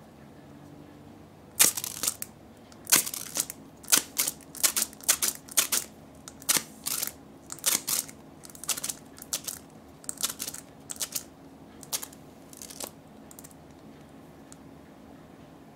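Handling noise from a small soft-vinyl chameleon party-horn toy with a ball chain, turned over in the fingers: a run of a couple dozen irregular sharp clicks and crackles. They start about a second and a half in and stop a few seconds before the end.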